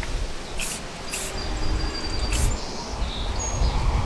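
Aerosol spray paint can giving three short bursts of hiss, dabbing brown paint on sparingly. A bird chirps faintly in the background.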